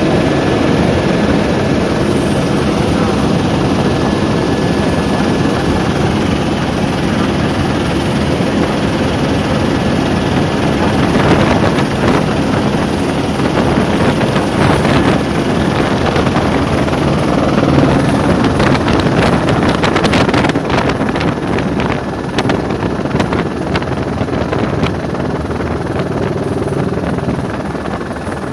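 Helicopter engine and main rotor running steadily in flight, heard from inside the cabin as a loud, constant drone. A rough crackling noise rides over it through the second half.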